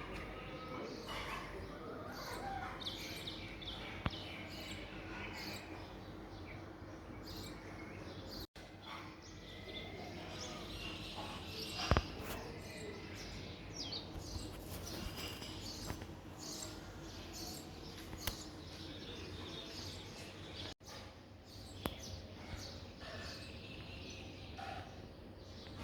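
Small birds chirping and twittering on and off throughout, short high calls over a steady low hum, with a few sharp clicks, the loudest about halfway through.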